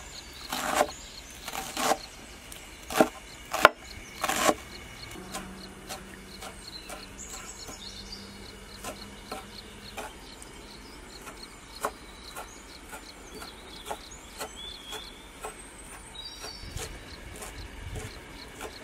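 Kitchen knife chopping fresh herbs on a wooden cutting board. A few loud knocks come in the first four seconds or so, then lighter, steady chopping at about two strokes a second.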